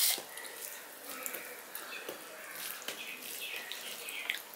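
A hand squishing and mixing cooked rice with curry on a steel plate: wet, sticky squelching with many small clicks, the sharpest right at the start.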